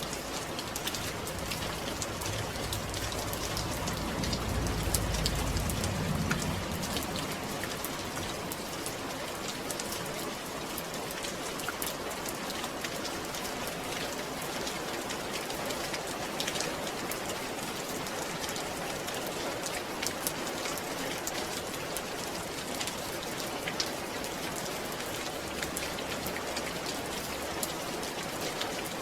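Steady rain falling on a surface, with many scattered drop ticks; a low rumble swells briefly about five seconds in.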